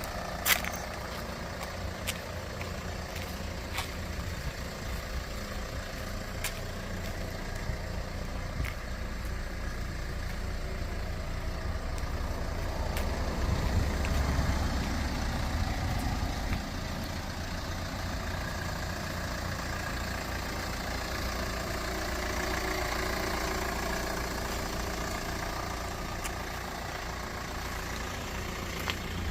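A 2012 Kia Sportage's engine idling steadily, with a few short clicks in the first several seconds.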